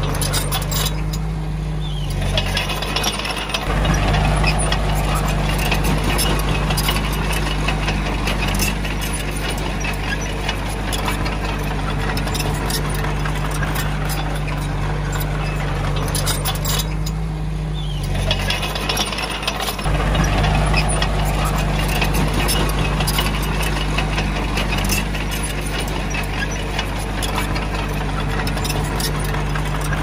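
Komatsu D20A crawler bulldozer's diesel engine running under load, with the steel tracks clanking and rattling. Twice the engine note drops for a couple of seconds, about two seconds in and again near the middle, then comes back stronger as the dozer takes up its next push.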